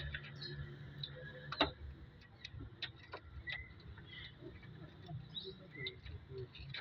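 Irregular light clicks and taps of hand tools on engine parts, with a few faint short bird chirps.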